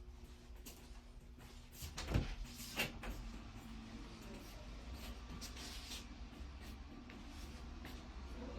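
Two sharp knocks a little over half a second apart, over a low steady hum and rumble.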